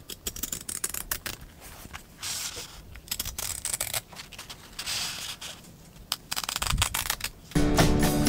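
Scissors cutting through sheet fabric: several runs of quick snips with the blades rasping through the cloth. Music comes in near the end.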